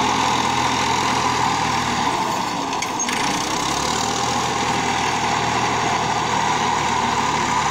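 Massey Ferguson 240 three-cylinder diesel tractor engine running steadily under load while pulling a loaded soil trailer through soft ground, puffing black exhaust smoke.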